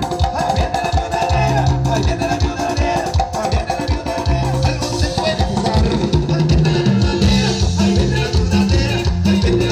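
Live band playing Latin dance music over loudspeakers, with a steady dance beat, a bouncing bass line and shaker-like percussion.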